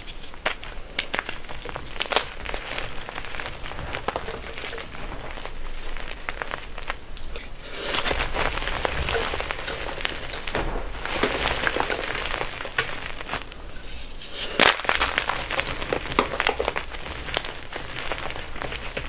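Blocks of gym chalk being crushed and crumbled by hand: a dense, fine crackling crunch that swells in several stretches, with one sharp loud crack about fifteen seconds in.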